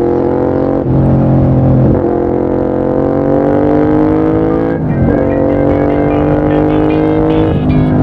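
Honda RC51's 1000cc V-twin through its exhaust, accelerating through the gears: the engine note climbs steadily and drops briefly at each upshift, about a second in, about five seconds in and again near the end.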